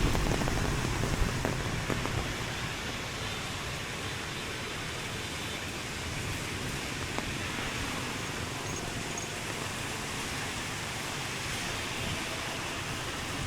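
Steady hiss of falling rain, with a low rumble in the first second or so that fades off.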